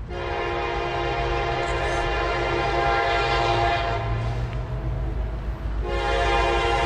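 Norfolk Southern diesel locomotive's air horn sounding a long blast of nearly six seconds, a brief break, then a second blast, over a low steady rumble.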